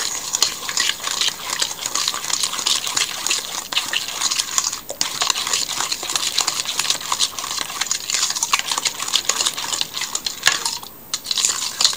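A fork beating thick creamy batter in a stainless steel bowl: rapid, continuous clinks and scrapes of metal on metal, with a brief pause near the end.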